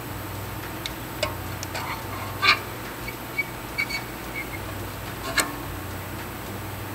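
Digital caliper clicking and knocking against a brake rotor and wheel as its jaws are slid and set to measure the rotor's thickness: a handful of sharp clicks, the loudest about two and a half seconds in, over a steady low hum.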